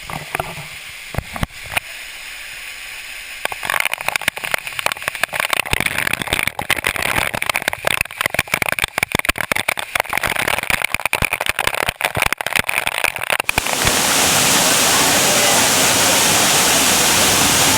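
Grotto Falls, a mountain waterfall, rushing. It is faint at first, then mixed with dense, irregular crackling for several seconds. About fourteen seconds in it becomes a loud, even roar.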